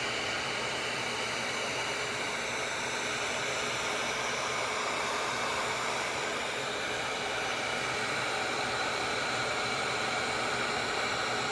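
Wagner electric heat gun running steadily on its highest setting, a constant rush of blown air.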